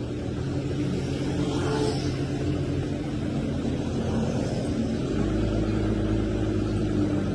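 A truck engine running steadily with a low hum, its note shifting about five seconds in.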